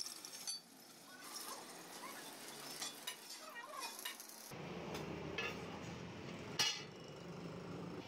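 A drill press bit cutting into a steel plate, stopping abruptly about half a second in. Then scattered metallic clinks and knocks from steel parts being handled, the loudest about two-thirds of the way through.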